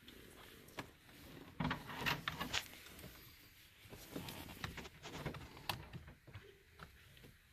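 Irregular clicks and light knocks of small parts and a hand tool being handled while screws go back into the steering column's switch assembly, busiest about two seconds in.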